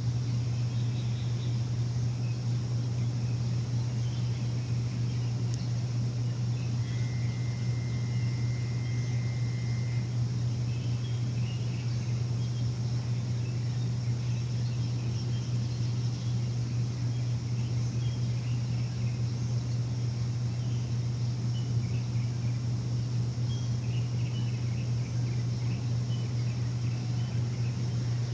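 A steady low machine hum, unchanging throughout, with faint bird chirps scattered above it. A thin, steady whistle holds for about three seconds a quarter of the way in.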